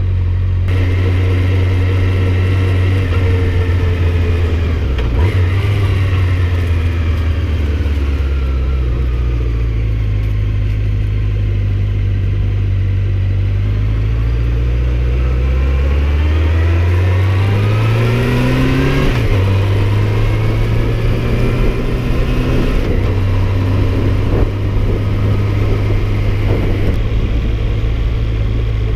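Honda CB750 Nighthawk's inline-four engine running under way on the road. Its note sags, then climbs steadily and drops suddenly about 19 seconds in, then holds steady.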